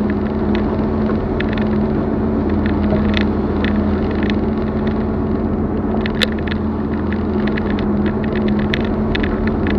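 Expedition vehicle's engine running steadily at a constant pitch while driving on a rough dirt track, with frequent light rattling clicks throughout and one sharper click about six seconds in.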